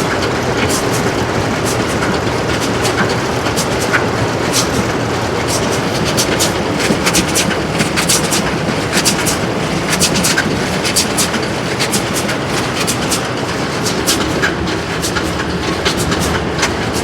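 New Holland BR7060 round baler running empty off the tractor's PTO, its drive chains and rollers clattering with irregular sharp clicks over a steady mechanical running noise. The chains have just been oiled with an oil and diesel mix while turning.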